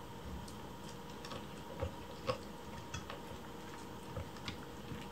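Kittens eating from bowls on a wooden floor: irregular small clicks and smacks of chewing and lapping, with a louder click just over two seconds in.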